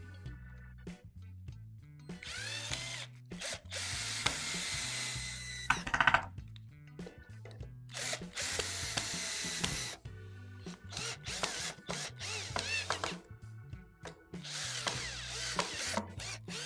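Power drill driving screws to fix the shelves, in three main runs of a few seconds each about two seconds, eight seconds and fourteen seconds in, with shorter bursts between. Background music with a steady beat plays underneath.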